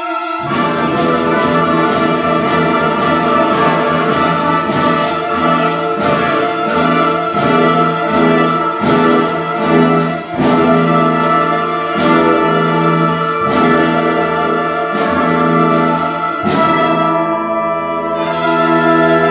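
Student orchestra of strings and brass playing a lively classical piece under a conductor, with sustained chords and evenly spaced accented beats, the brass prominent.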